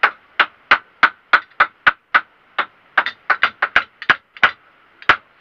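Hammer blows in quick, uneven succession, about twenty sharp strikes with a brief ring each, as a bed frame is being repaired.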